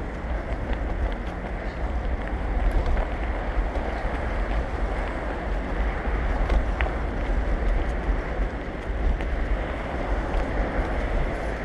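Wind buffeting a moving GoPro's microphone: a steady low rumble and rushing noise with a few faint ticks.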